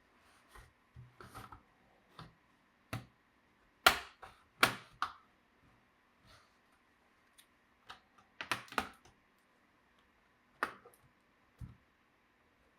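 Irregular sharp plastic clicks and snaps, a few at a time with pauses between, from handling a laptop and small tools during disassembly.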